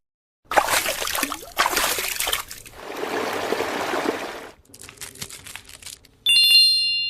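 Close-up sounds of makeup products being handled: crackling and light clicking, a steady hiss lasting about two seconds, then a bright chime near the end.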